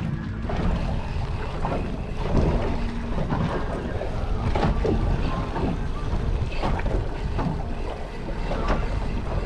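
Wind buffeting the microphone over small waves slapping against the hull of a small boat, with irregular short splashes.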